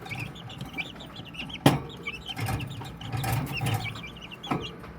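Many young chicks peeping over one another in a brooder, a steady chorus of short high cheeps. A sharp knock about a second and a half in, and another softer one near the end.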